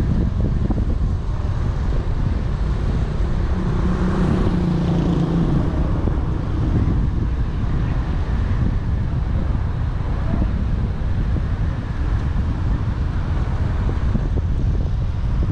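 Wind buffeting the microphone of a car-mounted camera while driving, over a steady rumble of the car and its tyres on the road. A brief low hum rises out of it about four seconds in.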